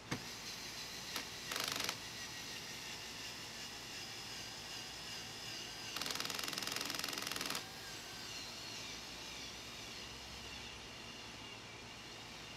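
Screws being driven while fitting a smoker's legs: a couple of sharp clicks, then a short burst and, about six seconds in, a longer spell of very rapid mechanical clicking from the screwdriver.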